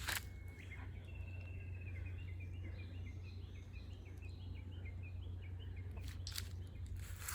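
A small songbird sings a quick run of repeated chirping notes through the first half, over a steady low rumble. Footsteps crunch on dry fallen leaves at the very start and again about six seconds in.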